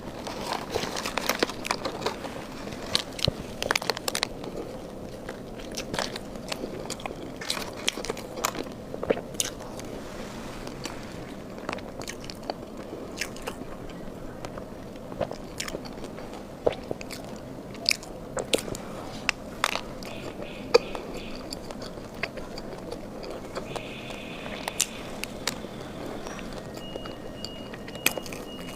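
Close-miked eating: a person chewing and biting food, with many sharp wet clicks and crackles from the mouth scattered throughout.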